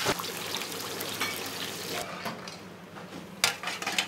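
Restaurant kitchen work: a steady hiss for the first two seconds, then clinks of pans and utensils with one sharp knock about three and a half seconds in.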